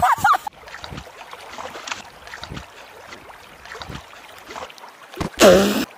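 Faint splashing and trickling water as a dog stands and paddles in a plastic tub filled by a running garden hose. It opens on the tail end of a loud scream and ends on a brief loud cry.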